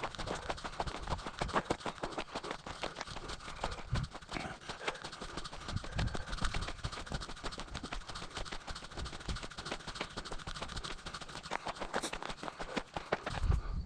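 Footsteps of hikers crunching and scuffing along a dirt and gravel trail, a steady run of irregular crunches and clicks, with a few low thumps.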